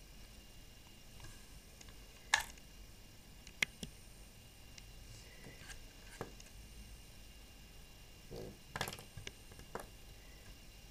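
A small plastic toy bicycle being handled and set down on a hard tabletop: about half a dozen light plastic clicks and taps spread over a faint steady room hum, with a brief soft rustle just before one of the later clicks.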